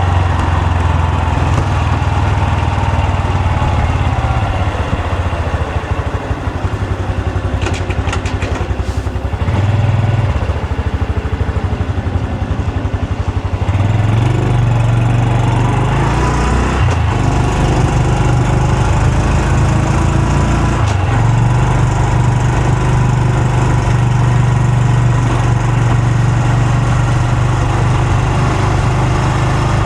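Honda Super Cub C125's single-cylinder four-stroke engine and exhaust running continuously, its note stepping up and down several times and climbing about halfway through. A short cluster of sharp clicks comes about a third of the way in.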